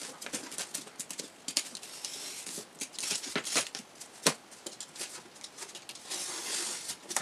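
A hobby cutter knife scoring and slicing through the paper wrapping and tape of a parcel: a run of short scratchy strokes and paper rustling, with one sharp click about four seconds in.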